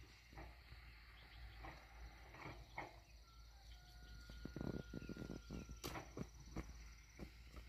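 A faint high insect trill, like crickets, stops shortly before the end. Scattered faint knocks and rustles run through it, bunched together about halfway.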